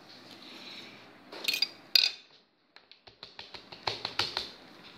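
Eating and handling noises as a forkful of banana pancake is bitten and chewed: a metal fork against teeth, mouth sounds and knocks on the camera. Two sharp, loud scrapes come a second or so in, then a run of quick small clicks in the second half.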